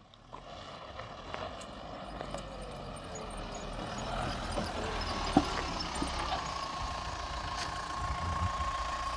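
Mahindra Thar CRDe's four-cylinder diesel engine, growing louder over the first few seconds as the vehicle comes close, then running steadily at idle, with one sharp click about five seconds in.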